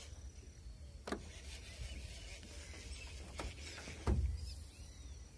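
Wind buffeting the microphone with a steady low rumble, broken by a few faint clicks and a dull thump about four seconds in.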